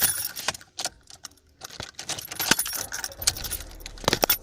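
Irregular metallic clinks and rustling, sharpest about two and a half seconds in and twice near the end, over a faint low engine hum that starts about three seconds in.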